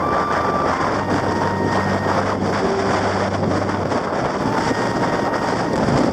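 Strong wind buffeting the microphone, a dense, steady rush.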